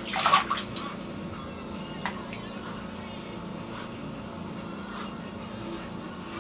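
A steady low hum with a faint click about two seconds in, after a brief snatch of voice at the start.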